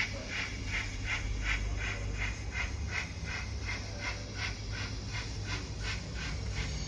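Steam exhaust chuffs from a Hornby OO gauge Rocket model's Zimo MS480F sound decoder, playing the Rocket sound file through its small onboard speaker as the locomotive runs. The chuffs keep a steady beat of about three a second and grow fainter near the end, over a low steady hum.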